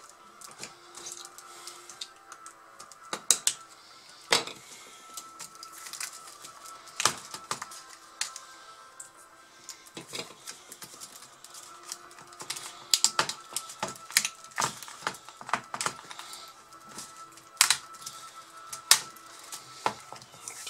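Irregular sharp clicks and snaps of a small tool working at the plastic rivets that hold the old keyboard in a Samsung NP535 laptop's palmrest.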